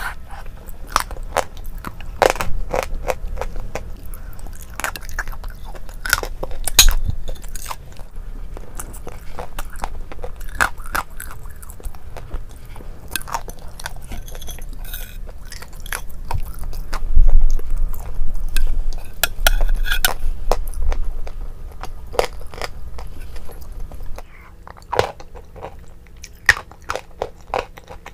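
Close-miked eating sounds: wet chewing and crunching of a creamy dessert, with many small irregular mouth clicks and crackles.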